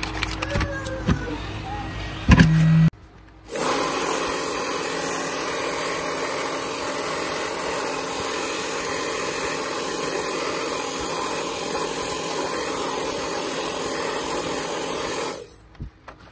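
Handheld hair dryer blowing a steady stream of hot air onto heat-shrink wrap to shrink it around a lithium-ion battery pack. It starts about three and a half seconds in, just after a brief loud burst, and cuts off shortly before the end.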